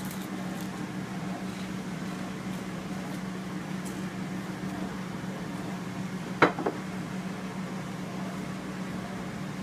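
A steady low hum, with a sharp clink of a ceramic plate about six and a half seconds in and a smaller clink just after.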